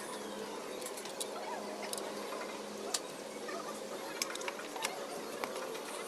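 Scattered sharp clicks and taps, about one a second, over a steady workshop hum.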